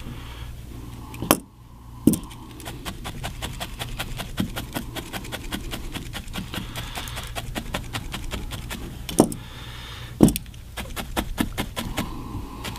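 Felting needle being stabbed rapidly into wool fibre, a fast even run of crisp ticks about four or five a second. The poking pauses twice briefly, marked by a few louder knocks.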